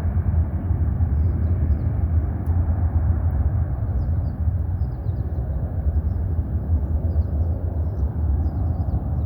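Low, steady rumble of a Boeing 767 jet's engines as the aircraft climbs away after takeoff. From about four seconds in, faint high chirps sound over it.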